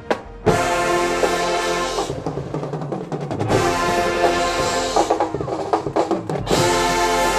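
High school marching band playing: brass chords over drums and percussion. After a brief break at the start, the full band hits about half a second in. In the middle, the brass thins out and percussion strokes stand out, and a full sustained brass chord comes back near the end.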